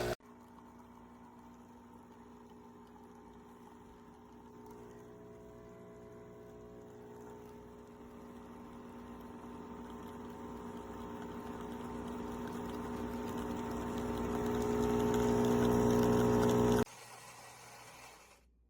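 Philips 3200 Series espresso machine's pump running with liquid flowing, a steady hum that grows steadily louder and then cuts off suddenly near the end.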